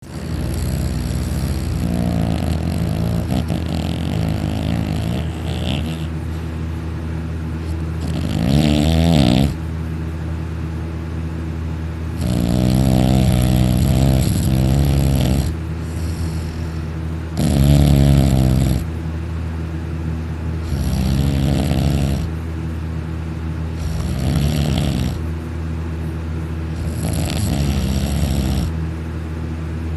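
Loud snoring from a young man in deep sleep after taking sleeping pills. A snore comes about every three to four seconds and lasts one to three seconds, over a steady low hum.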